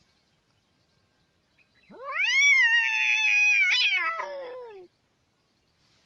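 A cat giving one long, drawn-out meow about two seconds in: the pitch rises quickly, holds, then slides down before it stops.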